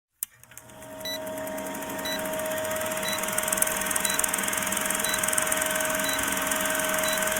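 Electronic intro sound effect: a steady hum with held tones that swells in loudness, with a short high beep about once a second.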